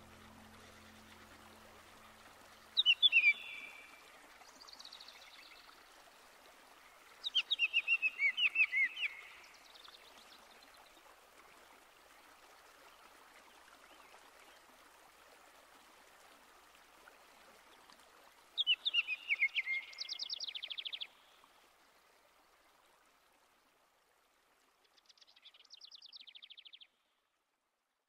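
A songbird singing four short phrases of quick, high, sweeping notes and trills, with long pauses between them, over a faint steady background hiss.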